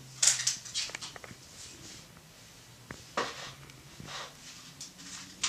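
A few short scratchy rustles and scrapes of cats moving on a wooden floor, a quick cluster near the start and single ones later.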